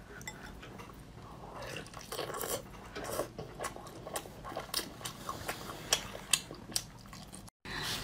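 Spicy lobster being cracked apart by hand and eaten: a run of sharp cracks and clicks of shell with biting and chewing, starting about two seconds in.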